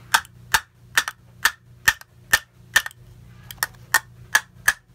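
A hammer striking a steel nut on the output shaft of a rear wiper motor, about two sharp metallic blows a second with a brief pause in the middle, driving the corrosion-seized shaft out of its housing.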